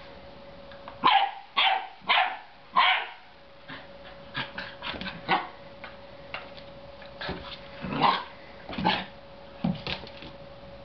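Belgian Shepherd Groenendael puppy barking at a dangling toy: four loud barks in quick succession about a second in, softer short barks through the middle, and a few more loud barks near the end.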